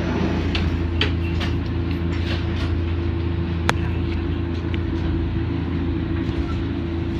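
Interior running noise of a Wakayama Electric Railway train car: a steady low hum with scattered light clicks and one sharp click about three and a half seconds in.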